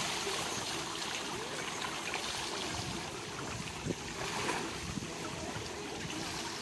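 Steady trickling and lapping of swimming-pool water, with light splashing from a child swimming.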